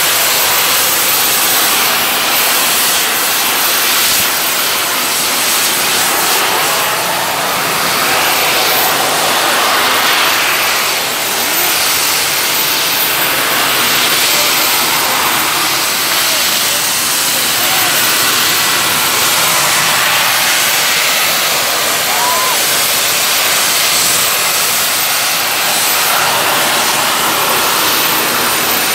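A jet suit's small jet engines, mounted on the arms and back, running with a loud, steady rushing noise as the pilot hovers in the air.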